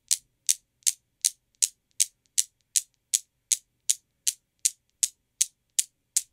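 Chrome steel balls of a Newton's cradle clacking against each other in a steady, even rhythm of sharp clicks, about two and a half a second. The cradle is swung as a one-and-three ball split: one ball on one side and three on the other strike in turn.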